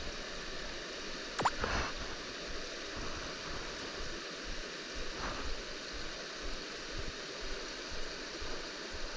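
Mountain stream water rushing steadily, with one short sharp sound about a second and a half in.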